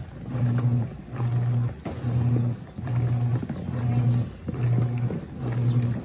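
Wanke Sally washing machine agitating a load in soapy water. The motor hums in short strokes, about one a second, with brief pauses as the agitator reverses direction, over the swish of water and cloth.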